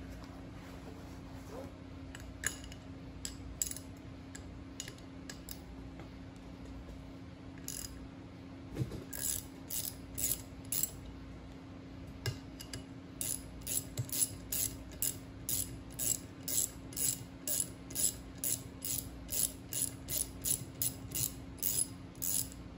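Hand ratchet loosening the bolts on a brake caliper's mounting bracket: a few separate clicks at first, then from about halfway a regular clicking of the pawl, about two strokes a second, over a steady low hum.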